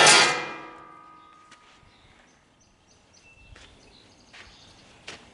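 Metal lid on a John Deere 466 baler shut with a clang that rings and fades over about a second and a half, followed by a few light clicks.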